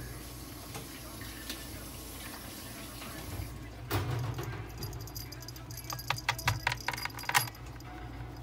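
Steady low hum with a single knock about four seconds in, then a quick run of light metallic-sounding clicks and rattles between about six and seven and a half seconds.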